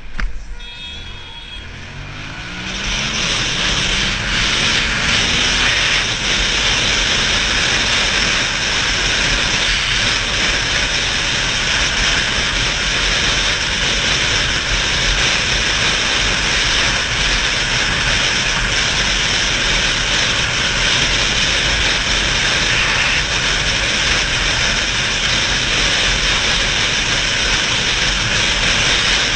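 Motorcycle accelerating hard, its engine rising in pitch through the first few seconds, then a steady loud rush of wind noise over a helmet-mounted microphone at road speed, with the engine running underneath.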